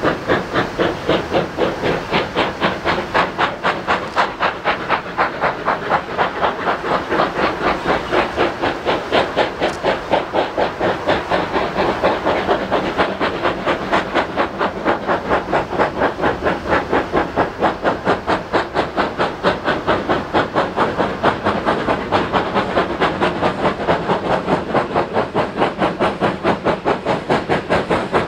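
Two steam locomotives double-heading a passenger train, working hard, their exhaust beating in a rapid, even rhythm of chuffs with steam hissing between the beats. The leading engine is an Ivatt Class 2MT 2-6-0.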